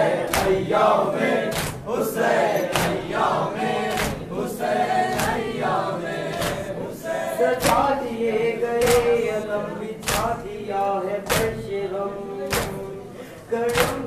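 Group of men chanting a Muharram noha in unison, with a steady beat of palms striking chests (matam), a little under two strokes a second, every other one louder.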